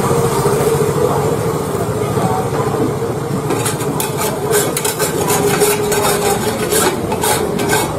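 Repeated clicking and scraping of a metal scoop in a multi-cup khanom khrok pan as the coconut rice pancakes are worked and lifted out of their cups, starting a few seconds in. A steady low engine-like hum runs underneath.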